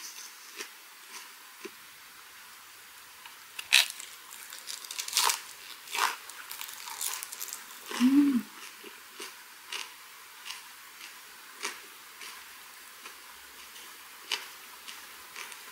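Close-miked chewing of a mouthful of herring gwamegi wrapped in kelp and laver with scallion, garlic and chili: scattered soft crunches and wet mouth clicks. There is one short closed-mouth hum about eight seconds in.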